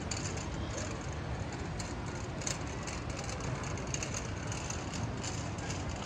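City street ambience: a steady rumble of passing traffic.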